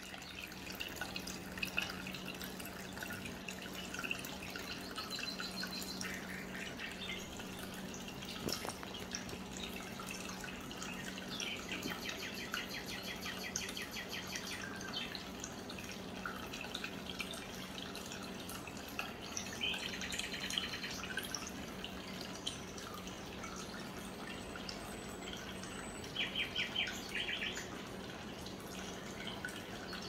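Water trickling and dripping steadily down a small cement tabletop waterfall into its basin, over a low steady hum from its pump. Birds chirp briefly a few times.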